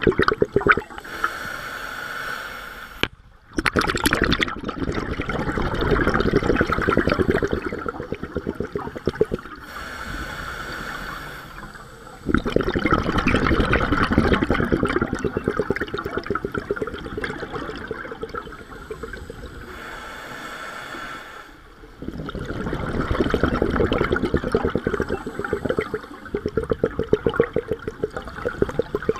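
A scuba diver breathing through a regulator underwater. Each breath is a short hissing inhale followed by a longer burbling rush of exhaled bubbles, about three breaths in all.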